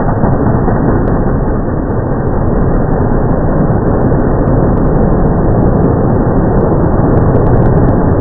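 Monster truck engine running hard as the truck drives over crushed cars and turns, slowed down in slow motion so it sounds deep and muffled.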